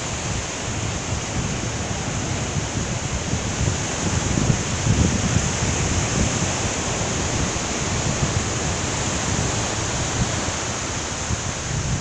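Small waves breaking and washing up a sandy beach in a steady hiss of surf, with a fluctuating low rumble of wind on the microphone.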